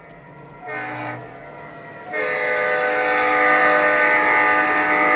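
Sampled EMD E8 diesel air horn from a Phoenix BigSound model-locomotive sound system, several notes sounding together. One short blast comes about a second in, then a long, louder blast starts about two seconds in.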